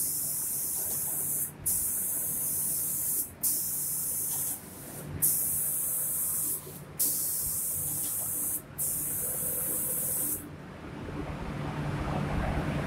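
Automatic spray painting machine's spray gun hissing in repeated passes of about a second and a half, cutting out briefly between passes as the gun turns. About ten seconds in the spraying stops, leaving a steady low machine hum.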